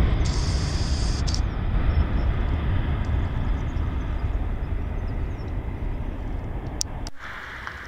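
Boeing 737-800's twin CFM56-7B turbofans at takeoff thrust as the airliner climbs away: a deep, steady jet rumble that slowly fades. About seven seconds in it cuts off abruptly, leaving quieter ambient noise.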